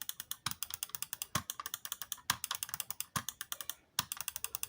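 Wired gaming mouse clicked rapidly and repeatedly, several sharp clicks a second, with a stronger click about once a second.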